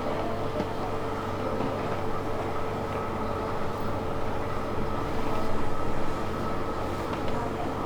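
Steady machine hum with a constant whirr, a few faint clicks over it, swelling slightly a little past halfway.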